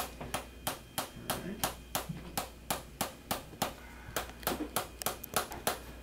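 Chiropractic adjusting hammer tapping on a metal stylus held against the shoulder: a steady run of sharp taps, about three a second, quickening near the end. It is a percussive adjustment meant to loosen the shoulder joint.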